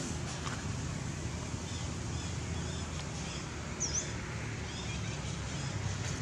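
Outdoor ambience: a steady low rumble of wind on the microphone, with scattered faint high chirps and one sharper, brief down-and-up chirp about four seconds in.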